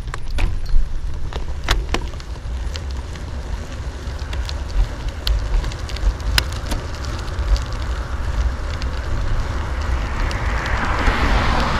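Wind buffeting the microphone of a camera mounted on a moving bicycle without suspension, with scattered sharp clicks and rattles as the bike goes over rough asphalt. Near the end a rising hiss of tyre noise builds as a car passes.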